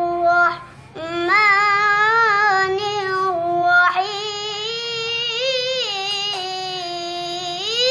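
A young boy chanting Quran recitation in long held melodic phrases with wavering ornaments on the notes. He breaks briefly for a breath about a second in.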